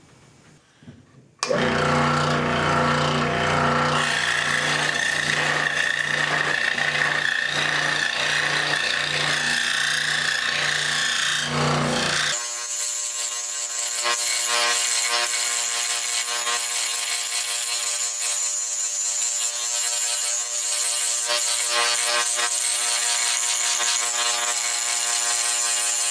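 Delta 15-inch scroll saw running, its reciprocating blade cutting circles out of a thin wooden board with a steady buzz. It starts about a second and a half in, and its tone changes abruptly about twelve seconds in.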